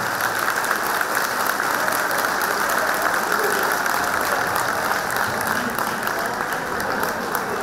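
Audience applauding, a steady even clapping.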